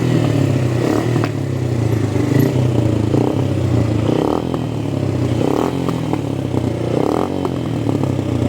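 Motorcycle engine running steadily, with a few brief louder swells.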